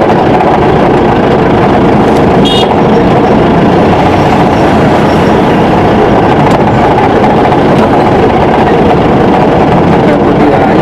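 Loud, steady engine and road noise heard from inside a vehicle driving on a rough unpaved dirt road, with a brief high chirp about two and a half seconds in.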